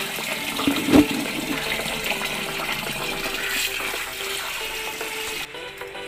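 Raw rice being washed by hand in a vessel of water, swished and rubbed so the water sloshes, with a single thump about a second in. The sloshing stops shortly before the end.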